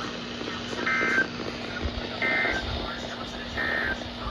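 NOAA Weather Radio end-of-message signal: three short bursts of two-tone SAME data warble (the EOM code that closes an EAS alert), about 1.4 s apart, over a steady low hum and radio hiss.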